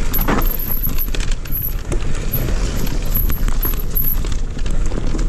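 Electric mountain bike riding over rough dirt singletrack: a steady low rumble with many quick rattles and clicks from the bike clattering over the ground.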